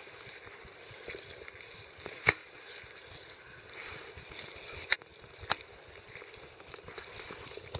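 Wind rumbling on the microphone, with three sharp clicks: one about two seconds in and two close together around five seconds in.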